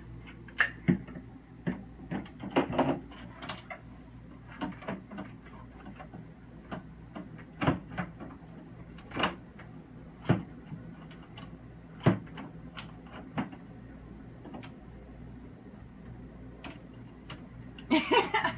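Irregular clicks and knocks of refrigerator parts being handled and fitted back into place by hand, over a steady low hum.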